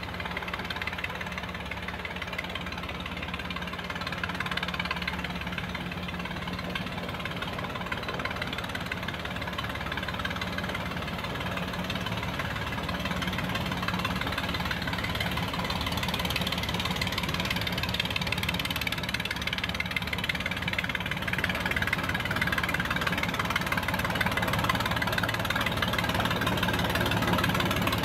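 Ruston narrow-gauge diesel locomotive's engine running as it approaches slowly, growing steadily louder.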